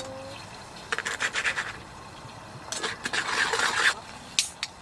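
Quick scratchy scraping strokes on a hard surface in two short bouts, followed by two light sharp clicks near the end.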